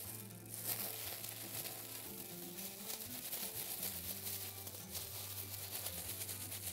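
Thin plastic bag crinkling and rustling as it is shaken and squeezed by hand to mix flour and spices inside it, over faint background music.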